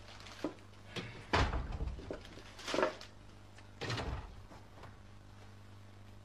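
A handful of short knocks and clatters at uneven intervals, the loudest about a second and a half and about three seconds in, over a low steady hum.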